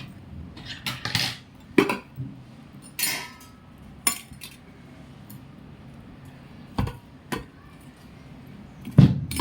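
Scattered clinks and knocks of dishes, utensils and containers being handled while a lunch box is packed, about seven separate strikes, the loudest near the end.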